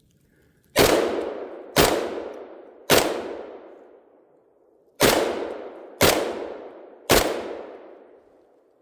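Six shots from a KelTec 5.56 bullpup rifle firing 55-grain ammunition. They come in two strings of three, about a second apart, with a pause of about two seconds between the strings. Each report echoes and dies away over about a second and a half.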